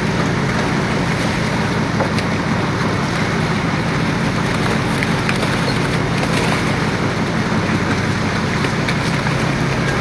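Fishing boat's engine running steadily, a constant low drone under a rushing noise, with a few faint clicks.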